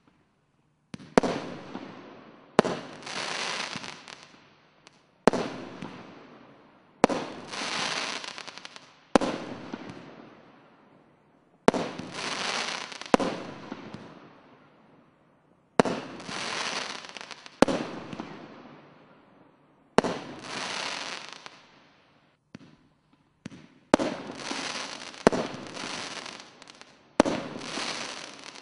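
Consumer firework cakes firing shot after shot, about fourteen in all, roughly one every two seconds and a little quicker near the end. Each shot is a sharp bang followed by a longer noisy burst that fades over a second or two.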